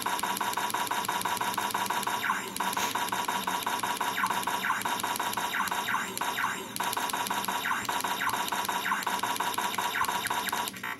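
Electronic firing sound effect from an Arduino-built Judge Dredd Lawgiver prop in its 'double whammy' mode: a harsh, buzzing, crackling sound with a fast stutter, dipping briefly about two and a half and again nearly seven seconds in.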